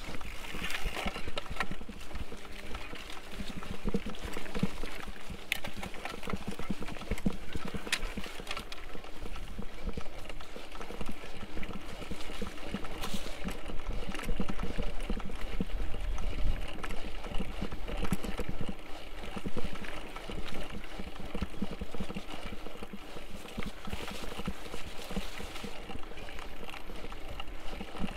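Mountain bike ridden over rough dirt singletrack: a continuous irregular rattle and clatter of the frame and chain, with tyres crunching over stones and roots.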